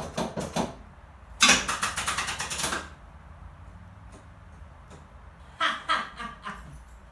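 Starter cranking a 1982 Pontiac Trans Am's engine in three short tries, the longest about a second and a half, without the engine catching. It is a cold start after a month of sitting, on a battery too weak to start it.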